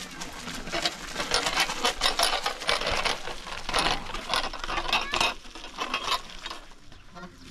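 Rapid, uneven run of clicks and taps, densest in the first few seconds and thinning near the end.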